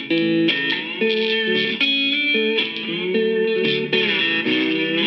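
Electric cigar box guitar played solo: picked notes and chords, with some notes sliding smoothly up and down in pitch.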